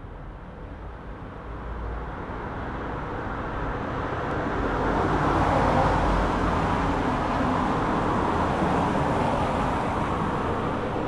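Road traffic noise: a steady rush of passing cars that swells gradually over the first five or six seconds, then holds.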